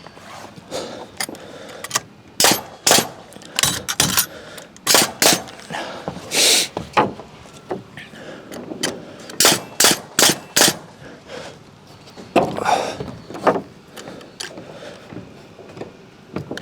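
Nails being driven into timber wall framing: a string of sharp, irregular impacts, some coming in quick runs of three or four.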